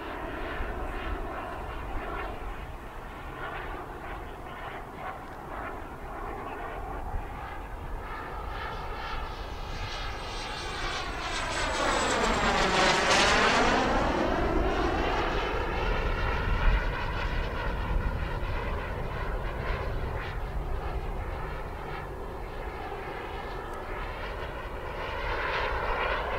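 Model jet turbine of a CARF Models Mephisto RC sport jet running in flight: a steady rushing whine that swells to its loudest about halfway through with a sweeping whoosh as the jet passes close, then eases back.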